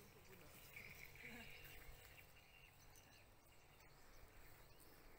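Near silence: faint outdoor ambience.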